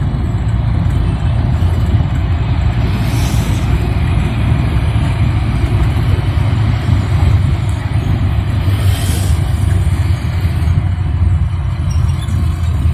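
Engine and road noise inside a moving angkot minibus: a steady low rumble, with a short hiss about three seconds in and again around nine seconds.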